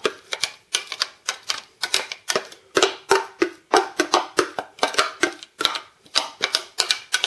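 Quick, irregular clicks and taps of a clear plastic chopper bowl being knocked and scraped out by hand, about three or four a second, as chopped garlic is emptied into a ceramic bowl.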